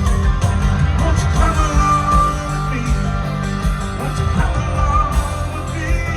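Live country-rock band playing, with guitars over a steady bass and drum beat.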